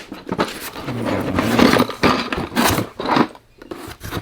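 Parts packaging and a cardboard box being handled and rummaged through: irregular scraping and rustling with a few sharp knocks, dying down near the end.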